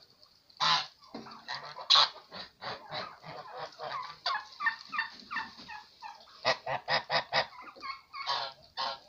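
A flock of domestic white geese honking, a long string of short calls one after another, with a louder run of honks about six and a half to seven and a half seconds in.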